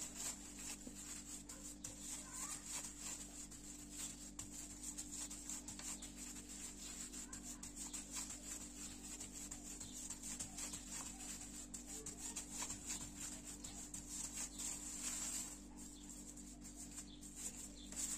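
Thin plastic bag crinkling and rustling as fingers press a raw ground-beef patty flat through it, a run of small crackles that thins out near the end, over a steady low hum.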